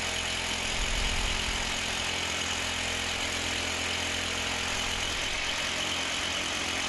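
Electric drill boring into a concrete wall, running steadily without a break.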